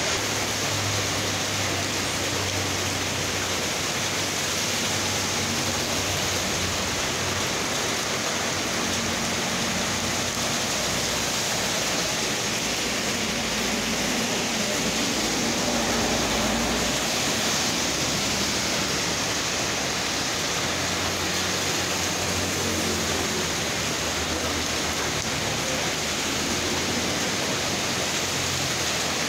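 Heavy rain pouring down on a street, a dense, steady hiss. Now and then a low engine hum rises from vehicles driving through the wet road.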